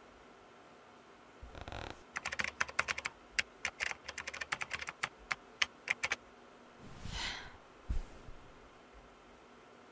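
Rapid, irregular typing on a laptop keyboard for about four seconds, then a short swish and a single soft thump near the end.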